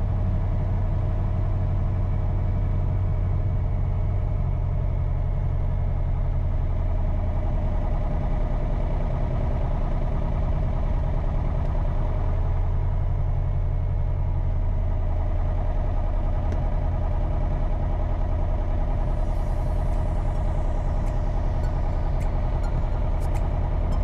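Light aircraft's piston engine running steadily at low power after landing, a constant low drone with no change in speed.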